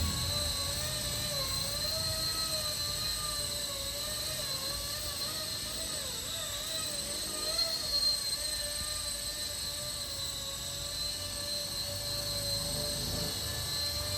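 Electric RC helicopter in flight: a steady motor and rotor whine whose pitch wavers slightly, over a low rumble.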